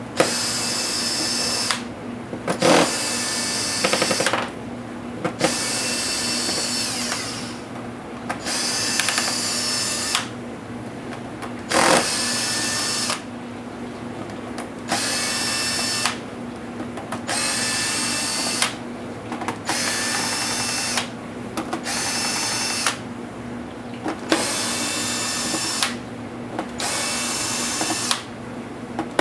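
Electric screwdriver motor whining in about a dozen short bursts of one to two seconds each, with brief pauses between, as it drives out the laptop's small case screws one after another.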